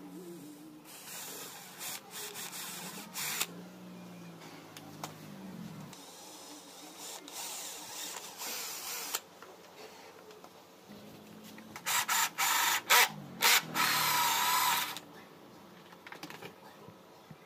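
Cordless drill boring camera holes into a car's side-mirror housing, run in several separate bursts. A quick string of short stop-start trigger pulls comes about two-thirds through, followed by the loudest, longest run.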